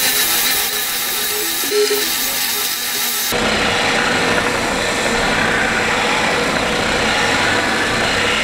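Triton TSPST450 oscillating spindle and belt sander running with its 450 W motor, the vertically oscillating sanding belt abrading the edge of a wooden block pressed against it. A steady motor whine under the rasp of the belt on the wood.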